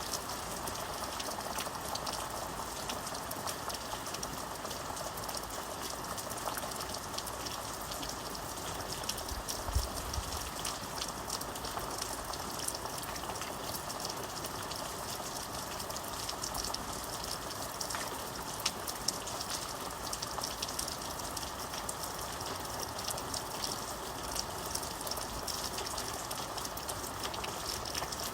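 Steady rain falling, a constant hiss with many individual drops ticking. One brief low thump about a third of the way through.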